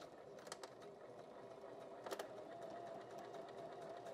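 Janome HD-3000 electric sewing machine running steadily, stitching a rolled hem in nylon fabric, with a steady motor hum and two sharp clicks.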